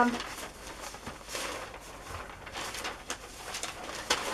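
Sheets of paper rustling as they are held up and shuffled, a few soft rustles.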